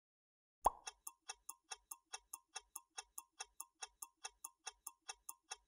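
Clock-ticking countdown timer sound effect, about five even ticks a second, starting with one sharper click about half a second in. It marks the time given to say the answer.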